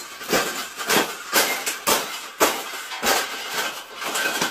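Wire cage clanking and rattling under a man's stamping feet: a run of sharp metal crashes, about two a second.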